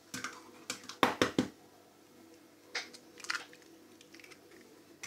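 An egg cracked on the rim of a plastic mixing bowl: three quick sharp knocks about a second in, then a few fainter clicks of the shell.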